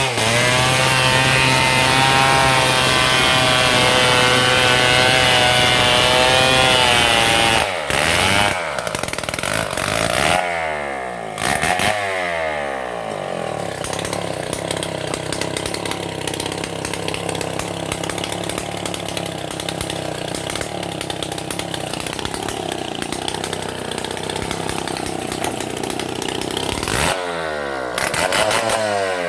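Stihl MS 070 two-stroke chainsaw running at full throttle, cutting through a palm trunk for about seven seconds. Then the throttle is released and the engine drops back, revved briefly a few times as it falls, and it idles until it is revved up twice near the end.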